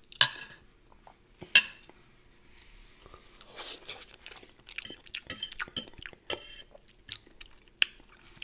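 Close-miked chewing of a cheesy omelette, with many short wet clicks of the mouth. In the first two seconds there are two sharp clinks of cutlery against a plate.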